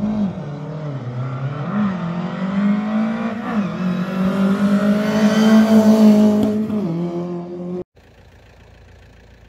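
Rally car engine revving hard as the car accelerates up the road toward the listener, its pitch dipping at gear changes about two and three and a half seconds in and growing loudest around six seconds in. The sound cuts off abruptly near the end.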